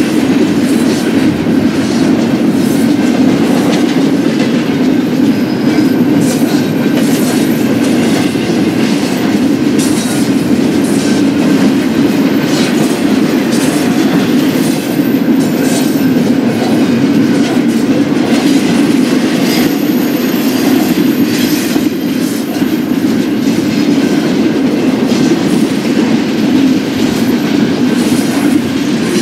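Freight cars of a BNSF double-stack intermodal train rolling past: a loud, steady rolling noise of steel wheels on rail, with irregular clicks over rail joints and a faint high wheel squeal now and then.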